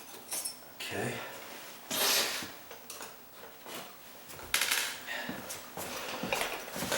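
Metal hand tool clinking and scraping against a metal door strike plate in a series of short, separate strokes, with a longer scrape about two seconds in and a sharp click about four and a half seconds in, as the strike plate's tab is worked back into line.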